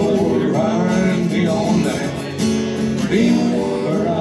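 Music led by strummed acoustic guitar, playing steadily.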